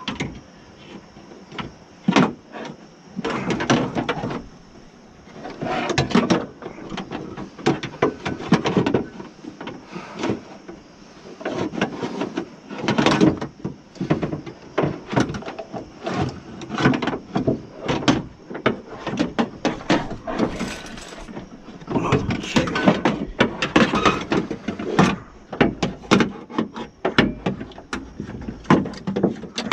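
Irregular clattering, rattling and knocking of regulator parts, fasteners and hand tools being handled during work on a car door's window regulator, in bursts with short pauses between.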